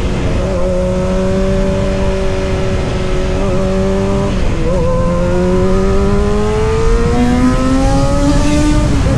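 Kawasaki ZX-6R's inline-four engine under way, holding steady revs, then dipping briefly about halfway through as it changes gear. After that the revs climb steadily under acceleration, then drop again at the next shift near the end.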